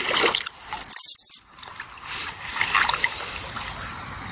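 River water splashing and sloshing in irregular bursts as a keepnet is worked in the water to let caught barbel out.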